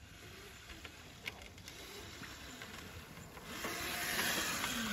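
Razor electric kids' dirt bike, faint at first, then passing close from about three and a half seconds in: a louder rushing hiss of its motor and tyres running through grass.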